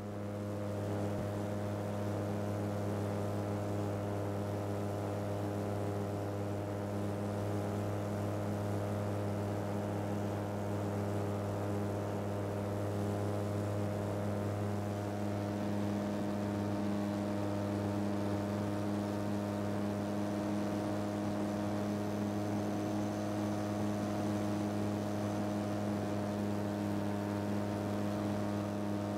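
Titan Tornado II light aircraft's engine and propeller droning steadily in flight, heard from inside the cockpit, with a constant pitch and no change in power.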